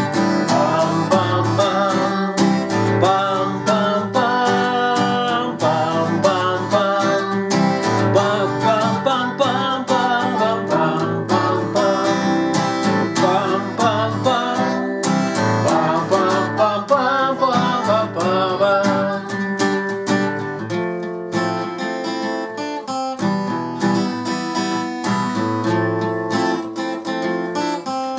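Acoustic guitar strummed through an instrumental break, with a wavering, gliding melody line over it that drops out about two-thirds of the way through, leaving the guitar chords.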